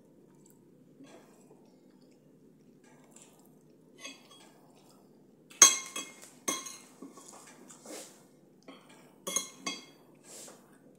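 Metal spoon and fork clinking against a ceramic plate while eating. It is quiet for the first few seconds, then comes a run of sharp clinks starting about halfway through, the first the loudest.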